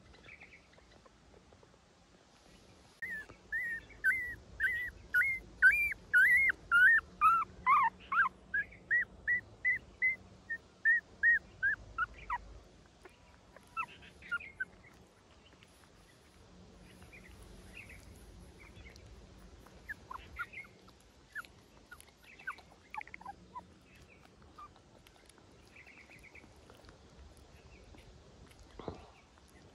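Puppy whimpering: a quick run of short, high-pitched cries, about two a second, for several seconds, then scattered softer cries.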